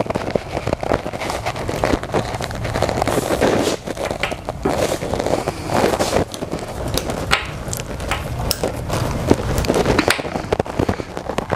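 Phillips screwdriver turned by hand to drive the screws of the fuel pump cover plate on a motorcycle fuel tank: irregular clicks and scraping of the tool and screws in the metal.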